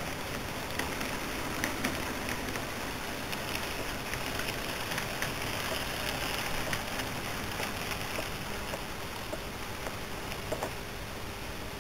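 Model railway train, an electric locomotive hauling passenger coaches, running along the track. A steady rushing noise with scattered light clicks.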